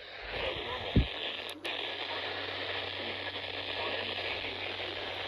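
Static hissing from a weather radio's speaker, with no clear station coming through. There is a low thump about a second in and a sharp click half a second later.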